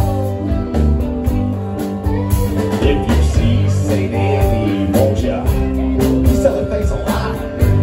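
A live rock band playing: electric guitar, electric bass, drum kit and keyboards, with a voice singing over them.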